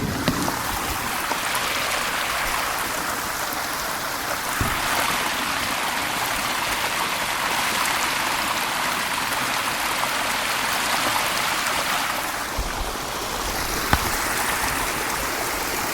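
Spring-fed waterfall splashing steadily: a constant hiss of water falling and trickling over rock.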